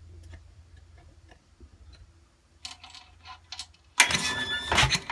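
Faint small clicks of handling, then about four seconds in a 1968 Sears Suburban 12's Tecumseh HH120 single-cylinder engine is suddenly cranked over with its head off, spinning fast and loud. It is being cranked to test a replacement solid-state ignition for spark.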